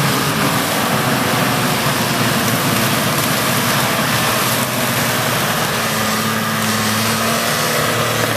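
Toyota Land Cruiser 80's engine running steadily as the SUV drives slowly through deep mud, with a loud, even hiss over it.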